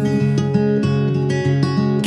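Background music led by an acoustic guitar, its notes picked and strummed over a repeating low bass line, with no singing.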